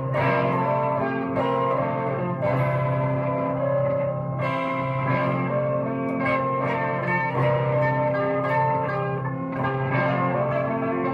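Guitar music: plucked notes over a steady low drone.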